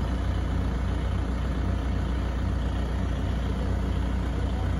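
Telehandler's diesel engine idling steadily, a low, even hum that does not change.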